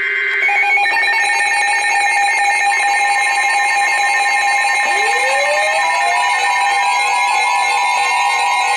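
Emergency alert attention signal: a loud, steady two-tone alarm. About five seconds in, a second tone joins it and sweeps steadily upward in pitch.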